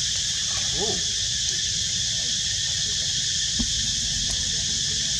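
Steady high insect buzzing, a chorus of crickets or cicadas, over a low rumble, with one short call that rises and falls in pitch about a second in and a single click a few seconds later.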